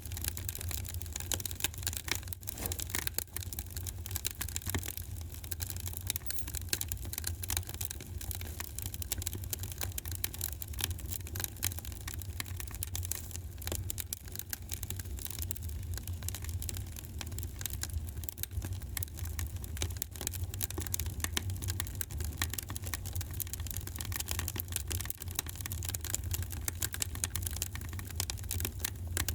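Wood fire crackling in a fireplace: a dense, irregular run of small pops and snaps over a steady low rumble.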